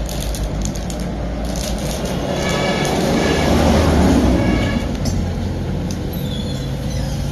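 A motor vehicle's low rumble, swelling to its loudest about three to four seconds in and then easing off, as it passes close by.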